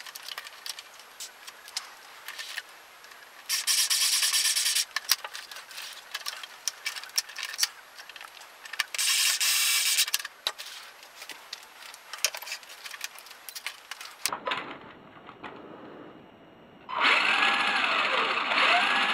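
Cordless electric screwdriver running in two short bursts, about 3.5 s in and again about 9 s in, driving the body screws of an RC truck, among clicks and knocks of hard plastic being handled. Near the end the RC truck's electric motor and gears whine up and down twice as the throttle is worked.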